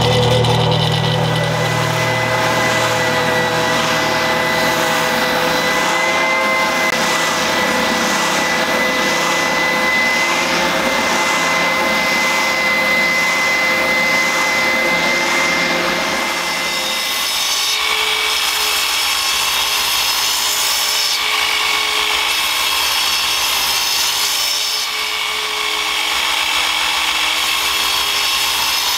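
Woodworking power tools shaping a laminated ash bow blank. A bandsaw's low hum stops about a second in, then an oscillating spindle sander runs with a steady high whine and a soft pulse about once a second as it sands the curved grip. About two-thirds of the way through, a different steady machine sound takes over, from a Festool sliding mitre saw.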